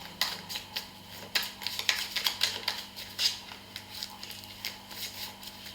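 A deck of reading cards being shuffled and handled: a string of quick, irregular clicks and flicks, over a low steady electrical hum.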